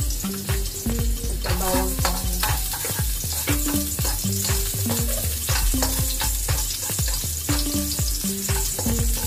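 Minced garlic sizzling in hot oil in a wok, stirred with a spatula that scrapes and taps against the pan as the garlic browns. Background music with a repeating bass line plays underneath.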